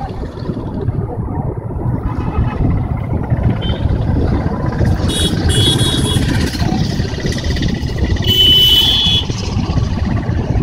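Steady low rumble of passing road traffic, with brief high-pitched squeals about five seconds in and again about eight seconds in.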